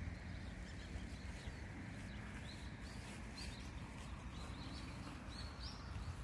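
Small birds chirping repeatedly, short high calls scattered throughout, over a steady low rumble.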